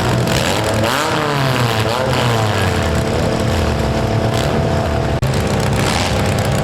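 Demolition derby economy compact cars' engines running hard together, revving so the pitch swings up and down several times, over a steady engine drone.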